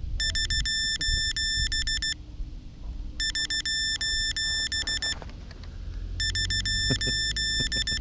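Electronic buzzer on a downed Vortex 250 Pro racing quad beeping in three runs of rapid high beeps, each about two seconds long with short gaps between, typical of a lost-model alarm, over a low wind rumble. Near the end there are a few handling knocks as the quad is picked up.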